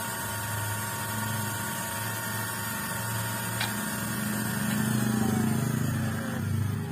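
Electric motor of a cordless 21-volt grass trimmer running unloaded at a steady whine, drawing about 9 watts. In the second half a lower tone slides downward in pitch.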